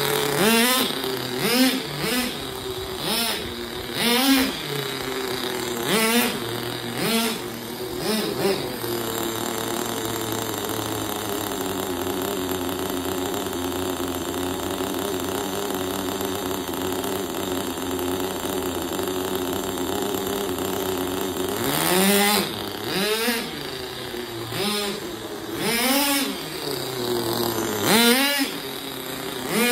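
Kyosho GT15 glow engine of a 1/10 nitro RC car being blipped in short high revs about once a second, then running at a steady pitch for some twelve seconds, then revving in short bursts again near the end.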